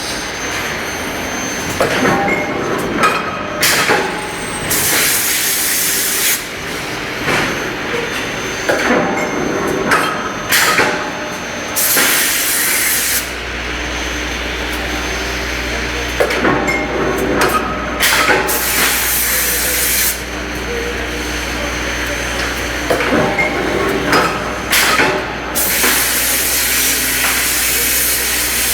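Copper bar induction heating line in operation, running through a repeating cycle. Each cycle has several-second bursts of hiss, sharp metal knocks, and scraping sounds that glide in pitch. A steady low hum comes in about halfway through.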